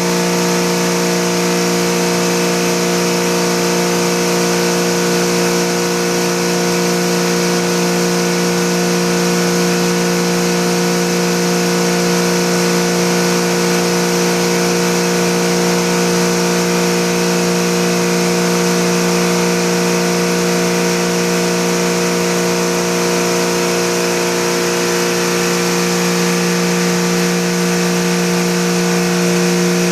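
Automatic air-conditioner cleaning machine running: a steady motor hum with a strong low tone and a stack of higher tones, with a hiss above them.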